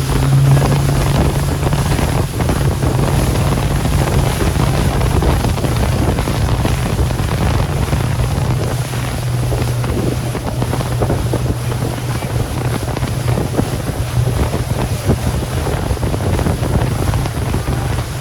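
Motorboat engine running steadily with a low hum, under heavy wind buffeting on the microphone and rushing water.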